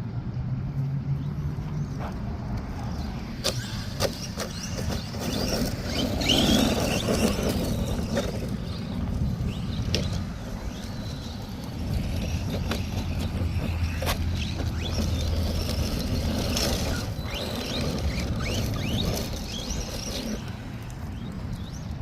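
Arrma Vortex electric RC car being driven over dirt and gravel: its motor whines up and down as the tyres scrabble, with a few sharp knocks from hits or landings.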